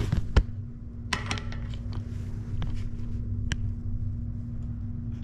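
A few sharp clicks and knocks of tools being handled, loudest near the start, over a steady low hum.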